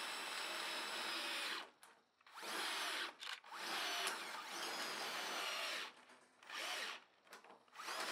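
Handheld power drill boring a 9 mm stainless steel drill bit through stainless steel sheet, opening up a pre-drilled hole. The drill runs in spurts, stopping and restarting four or five times.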